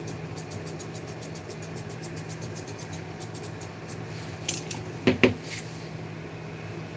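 Grooming scissors snipping a toy poodle's head hair in quick runs of light clicks, near the start and again about three seconds in, followed by a few louder clicks and knocks about five seconds in.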